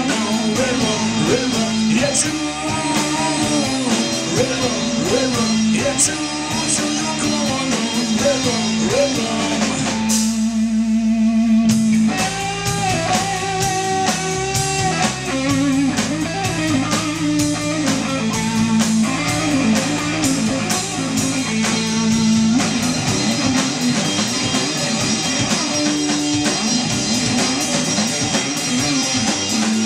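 Rock band playing live: electric guitars with a lead line of bending notes over bass and drum kit. About ten seconds in, the drums drop out for a couple of seconds under a held note, then the full band comes back in.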